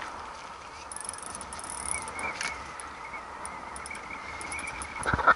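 Spinning reel's drag buzzing with a wavering high whine as a hooked giant trevally pulls line against the bent rod, over wind and sea noise. A sharp knock comes just before the end.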